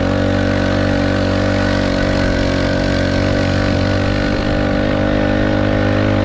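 Small 50cc moped engine running at steady revs while riding, with a rush of wind and road noise.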